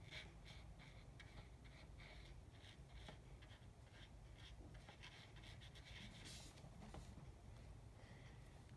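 Faint scratching of a thin paintbrush on watercolour paper: short, irregular dabbing and stroking as paint is worked in.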